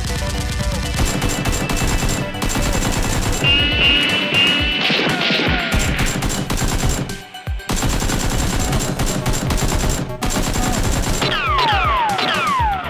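Rapid automatic gunfire in dense volleys of shots, with falling whistles near the start and again near the end. Music plays underneath.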